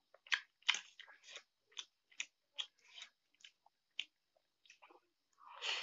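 Close-up mouth sounds of a person eating Maggi instant noodles: chewing with short, irregular clicks and smacks. Near the end comes a louder, longer rushing sound.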